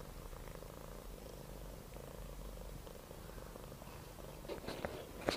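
Domestic cat purring steadily, with a few small clicks near the end.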